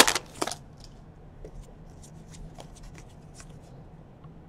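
Foil wrapper of a 2017 Donruss baseball card pack crinkling loudly as it is torn open, for about half a second. Then faint scattered flicks as the cards are slid one behind another.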